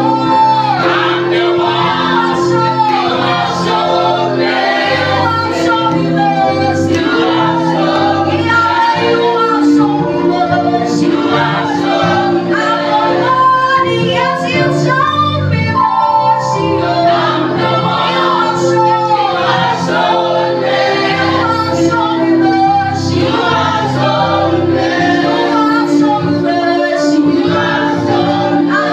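Gospel praise-and-worship song: a choir of voices, women's voices prominent, singing over instrumental accompaniment with a steady beat.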